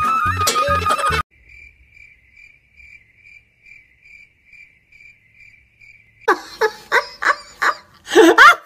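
Cricket chirping, a quiet even string of short chirps about three a second, after the background music cuts off about a second in. Near the end, loud short voice-like sounds break in.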